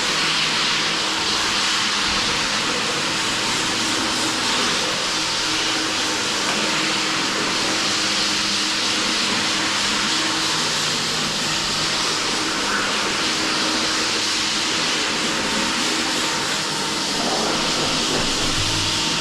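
Steady machine noise: an even, loud rush with a constant low hum, unchanging throughout.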